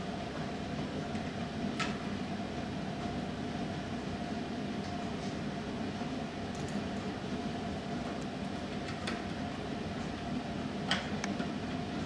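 Steady room hum and hiss, with a few light clicks and taps of a motherboard and screwdriver being handled on an acrylic case; the sharpest tap comes near the end.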